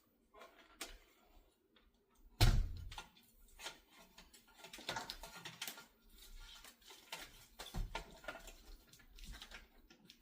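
A box fan and its packaging being handled: a loud thump about two and a half seconds in, then scattered clicks, taps and rustling.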